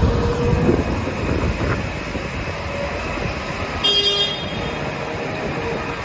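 JCB 3DX Xpert backhoe loader's diesel engine running as the machine drives off, with a short horn beep about four seconds in.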